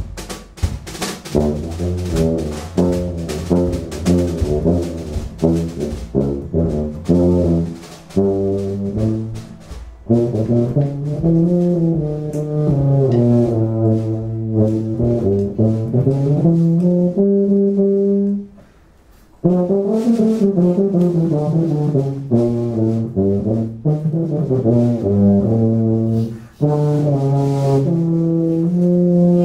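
Live band of tuba, tenor saxophone, guitar and drums: drums and horns play together at first, then the tuba carries a slow, sliding low melody with little else under it, stopping briefly about eighteen seconds in before going on.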